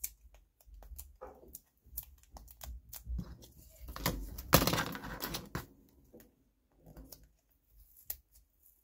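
Crafting supplies handled on a desk: light clicks and taps throughout, with a longer peeling noise from about four seconds in, lasting about a second and a half, as washi tape is pulled off its roll.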